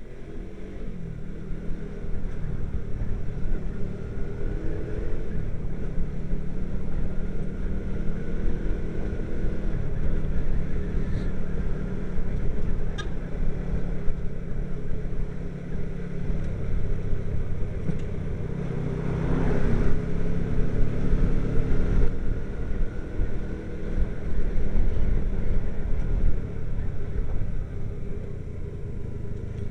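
Motorbike engine running as the bike rides along, its pitch shifting up and down with the throttle over a constant low road rumble.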